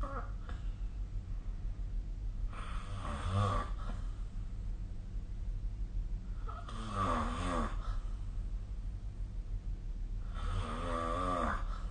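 A sleeping person snoring: three snores about four seconds apart, each lasting a little over a second with a wavering pitch, over a steady low hum.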